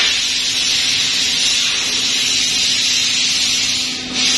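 Laser cutting machine at work cutting a metal grill: a steady loud hiss over a low steady hum. The hiss drops out briefly about four seconds in, then resumes.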